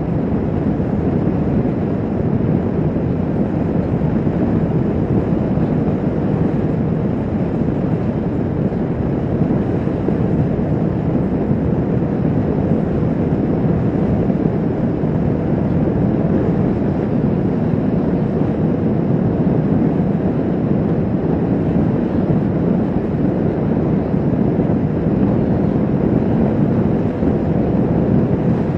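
Kawasaki Vulcan S 650's parallel-twin engine droning steadily at highway cruising speed, mixed with wind rush on the microphone.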